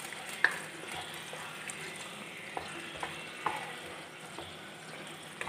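Wooden spatula stirring a thick chicken gravy in a pan, over a faint sizzle of the hot gravy. There are a handful of short sharp taps as the spatula knocks against the pan.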